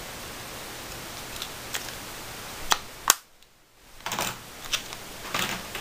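Small handling noises: a few light clicks and short rustles, with a sharp click about three seconds in followed by a brief drop to silence, over a steady low hiss.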